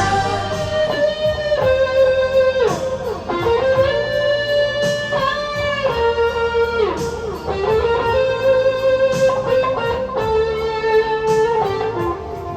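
Music with an electric guitar playing a melodic lead with sliding, bent notes over bass and a steady beat.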